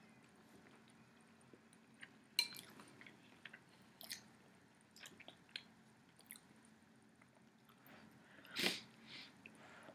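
Quiet mouth sounds of someone eating soup from a spoon: scattered small clicks and smacks of chewing, with a short, louder slurp from the spoon near the end.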